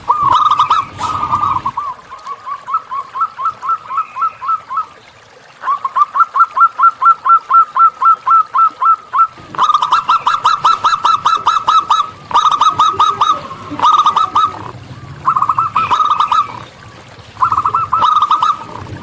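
Zebra doves (local perkutut) calling: runs of short, quickly repeated cooing notes, about three to four a second, broken by brief pauses. Some runs are faster and denser.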